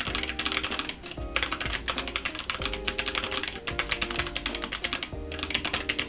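Keychron K5 low-profile mechanical keyboard with tactile brown switches, typed on quickly: a fast, continuous clatter of key presses that pauses briefly about a second in and again near the end.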